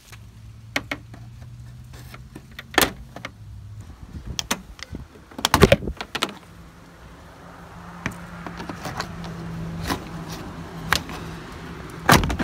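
Plastic pop clips being pried out of the plastic bezel over a Ram 1500's grille: a series of sharp clicks and snaps, the loudest about halfway through and again at the very end, over a low steady hum.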